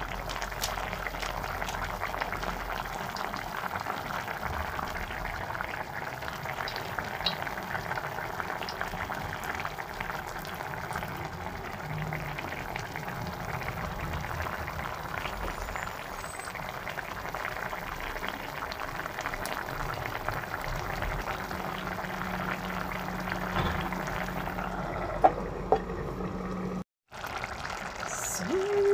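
Fish caldereta sauce simmering in a pot around pieces of fried fish: a steady bubbling boil with fine crackling. Two sharp knocks come near the end, and the sound cuts out for a moment just after.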